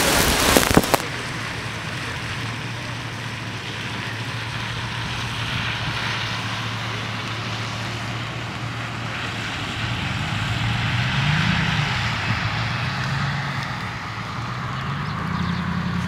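Strong wind buffeting the microphone for about the first second, cutting off suddenly. Then a steady outdoor hiss under a low vehicle engine hum whose pitch rises and falls twice, around the middle and near the end.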